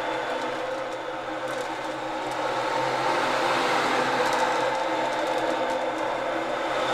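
Hand-held ocean drum with natural-skin heads, its beads rolling across the head in a continuous surf-like wash that eases off about a second in and swells again.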